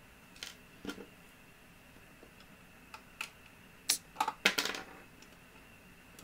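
Light plastic clicks and taps as tiny doll accessories are handled and set into a plastic toy locker, with a quick run of sharper clicks about four seconds in.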